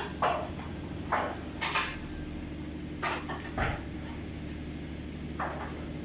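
Scattered knocks and clanks of tire-shop work, about six over the stretch, the loudest near the start, over a steady low machine hum.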